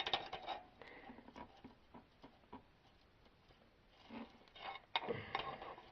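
Faint metallic clicks and scrapes of an open-end wrench working an oxygen sensor loose from the exhaust manifold, scattered at first, then a quiet stretch and a denser run of clicks and scraping about four seconds in.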